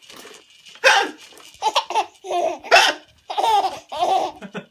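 Pretend hiccups, sharp and sudden, about a second in and again near the middle, answered each time by bursts of high-pitched child's laughter.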